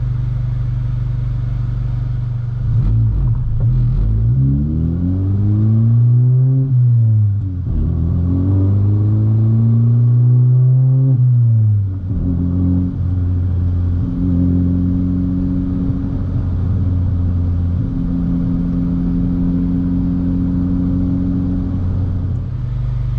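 Honda Civic Si's 1.5-litre turbocharged four-cylinder engine pulling the car: running steadily, then revving up and dropping back twice between about 3 and 12 seconds in as it accelerates through upshifts, then holding a steady cruise.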